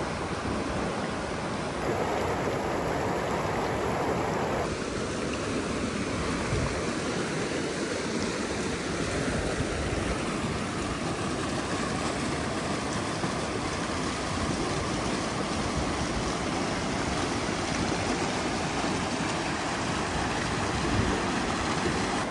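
Mountain creek rushing and splashing over boulders: a steady, continuous rush of water.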